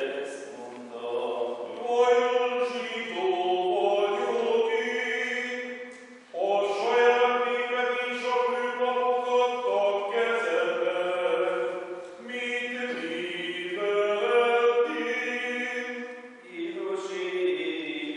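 Small group of men chanting part of a sung Passion in Hungarian, long held notes in phrases with brief breaks about six, twelve and sixteen seconds in.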